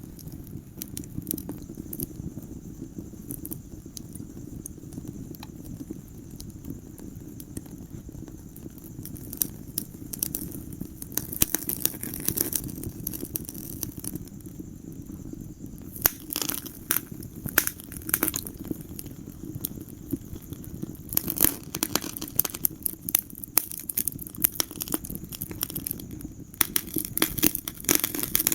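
Wood fire crackling in a fireplace: sharp pops and snaps over a steady low rumble of burning. The pops come in bunches every few seconds and grow busier in the second half.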